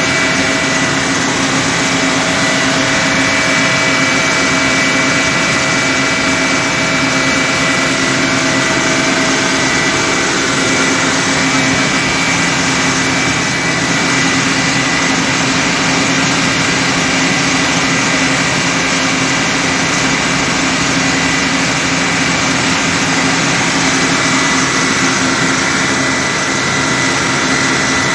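Fire truck engine running steadily at a constant speed, a hum of several fixed tones over a loud rushing noise.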